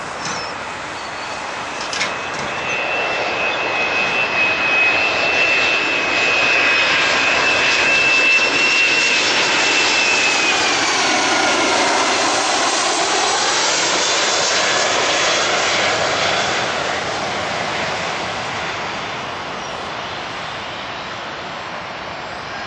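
A twin-engine jet airliner landing, passing low overhead on final approach. The engines' high fan whine holds steady as the jet closes in, then drops in pitch about halfway through as it goes by, and the engine noise fades as it reaches the runway.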